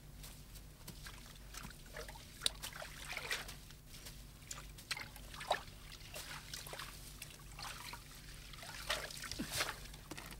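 Scattered small splashes and trickles of water from a person wading and working in a flooded, muddy rice paddy, over a low steady hum.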